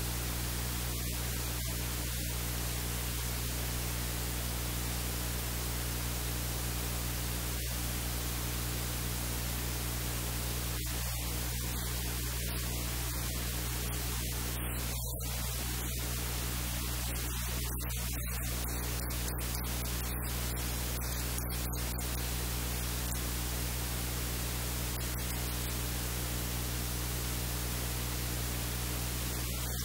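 Steady hiss of electrical static with a low, even hum underneath. No kitchen sounds stand out from it.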